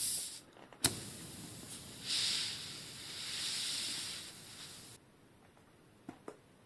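Air hissing out of a bicycle inner tube through the puncture as pliers pull a pushpin out of the tyre, with a sharp click a little under a second in. The hiss swells twice and cuts off suddenly about five seconds in, followed by two faint clicks.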